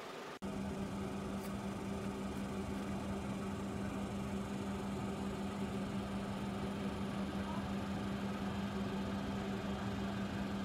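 Steady cabin drone of a Boeing 767 on the ground, heard from inside the cabin: an even hum with a steady low tone, starting abruptly about half a second in.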